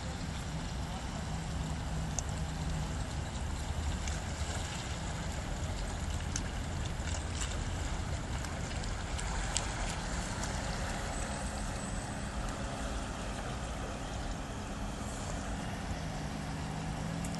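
Toyota RAV4 SUV's engine running at low revs as it reverses slowly, with its wheels and the jet-ski trailer pushing through shallow flood water.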